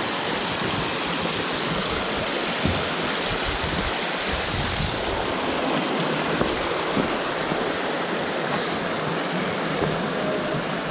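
Running water of a creek, a steady rushing noise.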